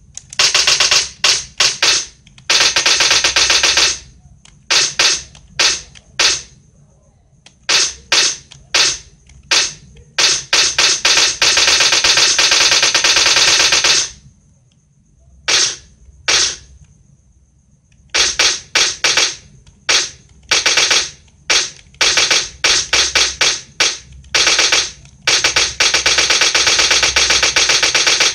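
Machine-gun sound effect: bursts of rapid automatic fire, some short and some held for several seconds, among single shots, with a pause of about four seconds midway.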